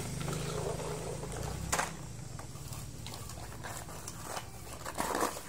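A low engine hum fades out about two seconds in. Then come a sharp click and a few light knocks as plastic toy trucks and a toy excavator are handled and set down on dirt.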